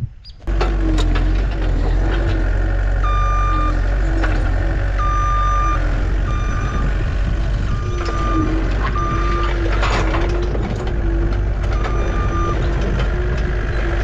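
Case skid steer's diesel engine running while it moves a log on its forks, its back-up alarm sounding in short beeps on and off as it reverses.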